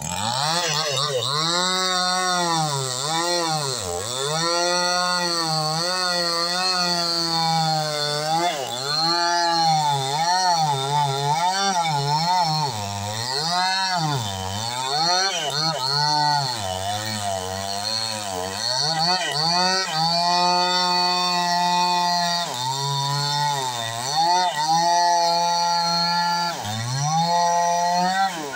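Chainsaw cutting through a felled coconut palm trunk, its engine pitch dropping again and again as the chain bites under load and climbing back between cuts.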